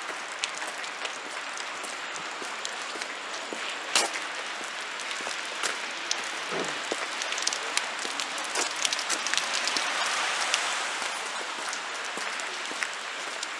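Outdoor street ambience picked up while walking: a steady crackling, rain-like hiss with scattered sharp clicks, the loudest about four seconds in.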